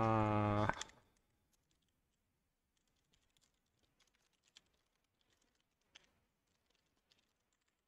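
A man groans once, held for about a second, at the start; then a computer keyboard is typed on lightly, in scattered keystrokes.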